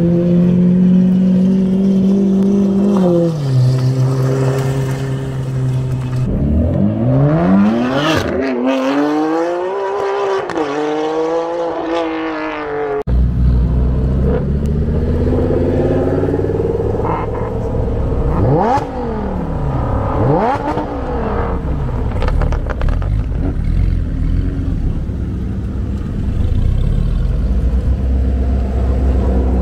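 Supercar engines running and revving, their pitch climbing and falling in repeated sweeps. About 13 seconds in the sound changes abruptly to a deeper engine note, with a few quick revs that rise and fall sharply.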